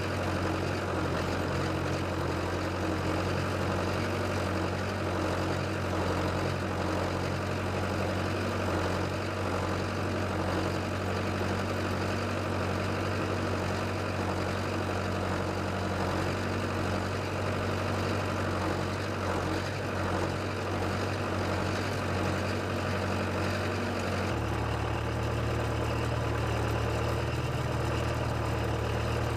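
Case 580CK backhoe's engine running steadily at idle, a continuous low drone that changes and gets deeper about 24 seconds in.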